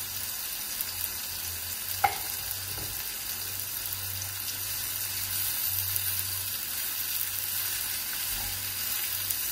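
Sliced leeks, onion and peppers sizzling in a non-stick wok, with one sharp tap about two seconds in. Near the end a silicone spatula stirs the vegetables.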